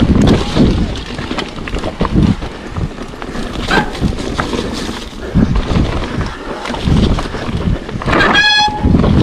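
Mountain bike riding fast down a dirt forest trail, heard from a camera on the rider: a steady rush of wind and tyre noise with irregular knocks and rattles as the bike goes over bumps. A short high squeal sounds near the end.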